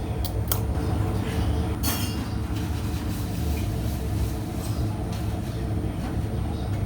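Steady low hum of an electric train, with a few sharp clicks and clinks in the first two seconds.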